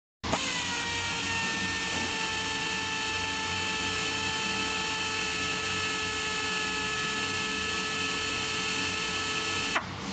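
Pneumatic torque wrench's air motor starting abruptly and running freely with a steady whine of several tones over a hiss. Near the end its pitch drops sharply as it slows.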